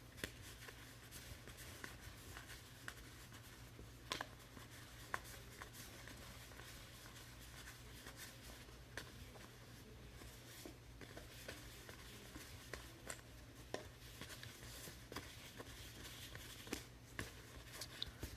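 Faint handling of trading cards: scattered soft clicks and rustles as cards are flipped through, over a low steady hum.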